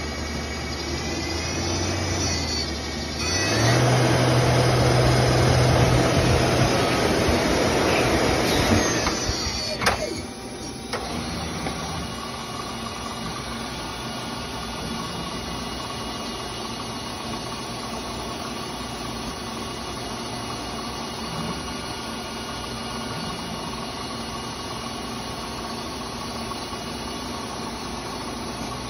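1999 Mazak Multiplex 6200Y twin-spindle CNC lathe running a cycle: a motor hum with a faint rising whine, then about three seconds in the spindle tone steps up and a loud rushing noise of machining takes over. Just before ten seconds it cuts off with a sharp clunk, leaving the machine's steady, quieter hum.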